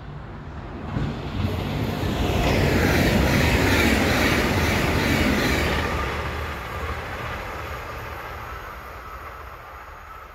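A train passing by: it grows louder over the first two seconds, is loudest for about three seconds, then fades slowly as it moves away.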